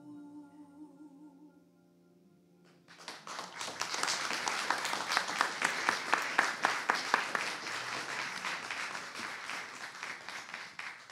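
The last held chord of music, with a wavering tone, fades out. About three seconds in, a congregation starts applauding: dense clapping that carries on to the end.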